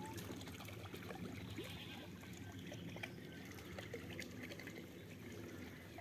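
Faint outdoor ambience: a steady low rush with scattered short, faint chirps and light clicks.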